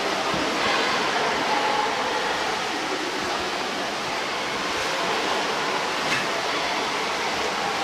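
Indoor swimming pool ambience: a steady wash of splashing water from swimmers in the pool.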